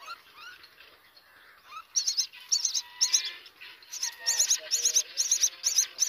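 Common myna nestlings begging. Faint chirps at first, then from about two seconds in a loud run of rapid, repeated high chirps, about three a second.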